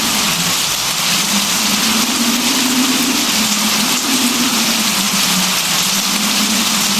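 Steady rain falling, a dense even hiss, with a low humming tone underneath that wavers slightly in pitch.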